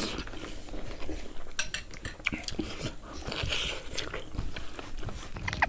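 Close-up eating sounds: a metal spoon clinking against a ceramic soup bowl and chewing, heard as scattered small clicks and smacks.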